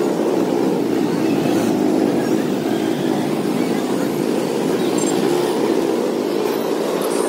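Steady drone of a motor vehicle engine with busy street traffic around it, running on without a break.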